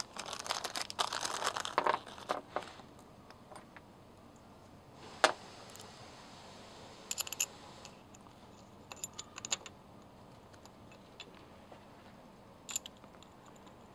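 A small plastic bag of screws rustling as countersunk bolts are picked out of it, then a few sharp small metal clicks and taps as the bolts and the mounting bracket are handled.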